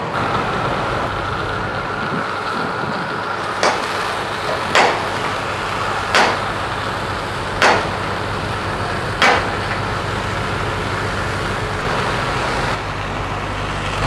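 Steady rushing outdoor noise, with five sharp metallic-sounding knocks about a second to a second and a half apart in the middle of the stretch.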